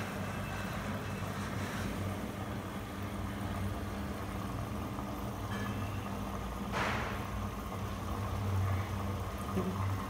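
IFB Diva Aqua SX front-load washing machine taking in water at the start of its wash cycle: a steady low hum with the sound of water running in, and a brief louder hiss about seven seconds in.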